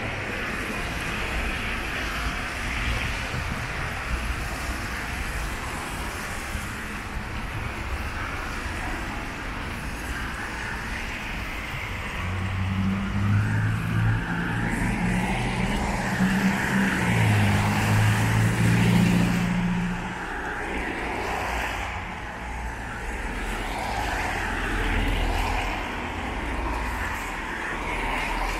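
Town-centre road traffic: a steady hum of cars, with one vehicle's engine passing close and louder for several seconds in the middle.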